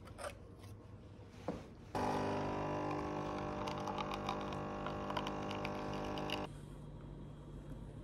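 Capsule coffee machine brewing: its pump starts suddenly about two seconds in with a steady hum and a crackle as coffee runs into a paper cup, then cuts off abruptly about four and a half seconds later. A couple of light clicks come before it starts.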